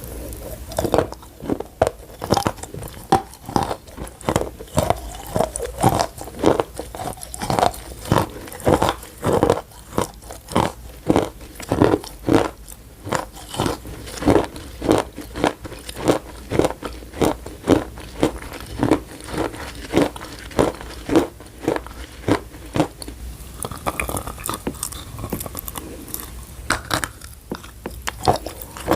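Close-miked crunchy chewing of chalk in the mouth, about two crisp crunches a second, with a short lull about three-quarters of the way through before the chewing resumes.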